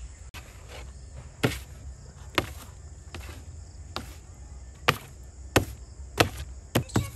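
Soft bread dough being slapped and pressed down onto a tabletop while it is kneaded by hand: a series of wet slaps about once a second, some much louder than others, coming faster near the end.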